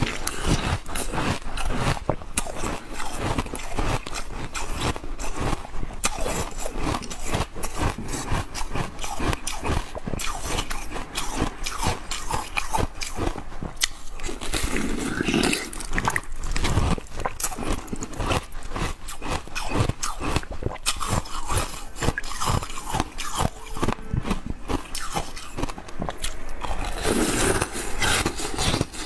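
Coloured ice being bitten and chewed: a dense, continuous run of sharp cracks and crunches as the frozen pieces break between the teeth.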